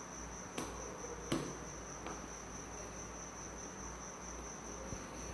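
Faint clicks of a screwdriver and wire ends being worked at the terminal screws of a lamp holder, over a steady high-pitched trill in the background.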